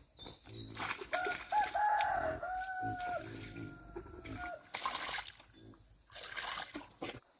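A rooster crowing once, a long call of about three seconds starting about a second in, amid scattered rustling and light knocks.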